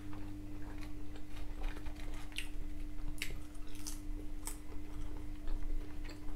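A person chewing soft chip-shop chips close to the microphone: soft wet mouth sounds with a few sharp clicks here and there. A faint steady hum runs underneath.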